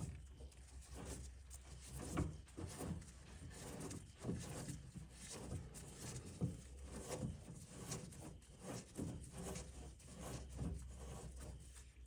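Faint, irregular knocks, clinks and rubbing from hands and tools working metal suspension parts as a new outer tie rod end is fitted onto the inner tie rod, over a low steady hum.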